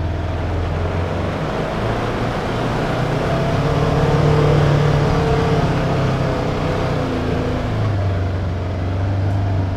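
Side-by-side UTV engine pulling under load through mud and up a slick hill: the revs climb a few seconds in, peak about halfway, then drop back near the end.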